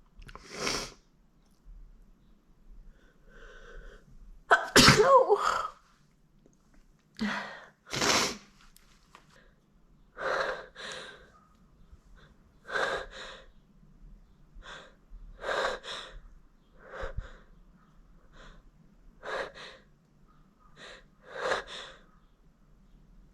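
A young woman sneezing again and again, in short sharp bursts with quick breaths between them; the longest, loudest sneeze comes about five seconds in. The sneezes are set off by tickling her nose with a feather.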